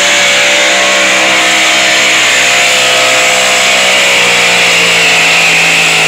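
Pickup truck's engine held at full throttle while pulling a weight-transfer sled, a loud steady drone whose pitch sags slightly over the last couple of seconds as the sled's load drags it down.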